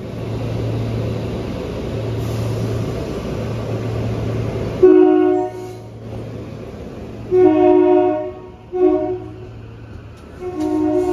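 SEPTA Regional Rail electric train running with a steady rumble and low hum. About five seconds in its multi-chime horn sounds four blasts in a long, long, short, long pattern, the signal for a grade crossing.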